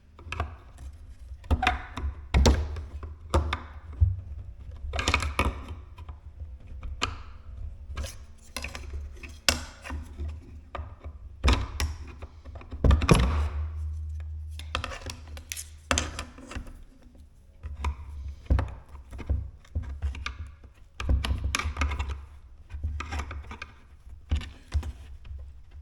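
Irregular knocks, clicks and thunks as an old Blum concealed-hinge cup is pried and worked up out of its tight bored hole in a cabinet door with a wooden paint stir stick.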